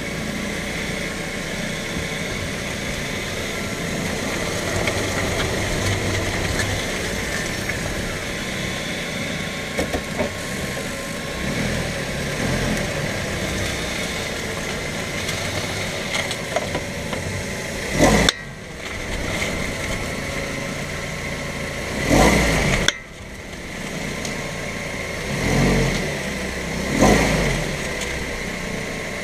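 Mazda 3 running, with clicking and popping noises from the front end; a few light clicks come about ten seconds in, and several louder pops stand out in the second half.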